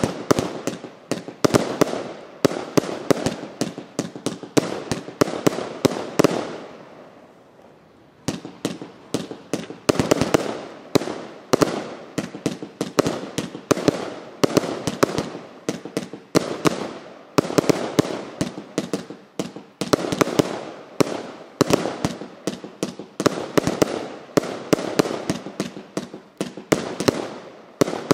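Ghost Machine 2.0 firework cake firing a rapid series of shots and aerial bursts. The firing lulls for about three seconds around seven seconds in, then resumes just as densely.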